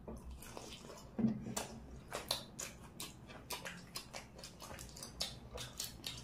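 Close-up mouth sounds of people biting into and chewing biri bara fritters and chicken curry: irregular wet clicks and smacks, with a brief low hum about a second in.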